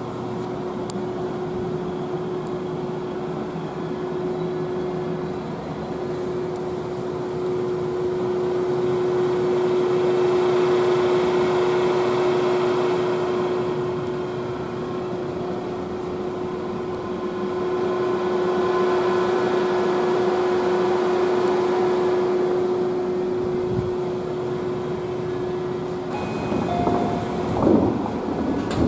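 Interior noise of a Tobu 30000 series electric commuter car: a steady hum under a rushing noise that swells twice and eases.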